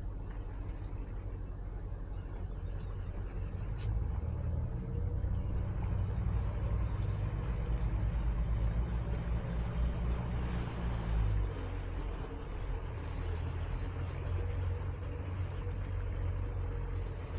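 Towboat's engine running steadily under way while towing a disabled boat, a low rumble that gets louder about four seconds in and eases back about eleven seconds in, with a rushing noise over it in the middle.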